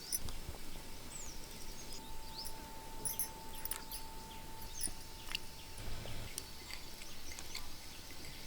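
Small birds chirping in short falling calls, with scattered light clicks and knocks and a faint steady whine for about three seconds in the middle.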